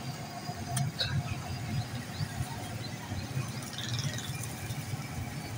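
Street background noise: a steady low traffic rumble, with a couple of sharp clicks about a second in and a few short high squeaks.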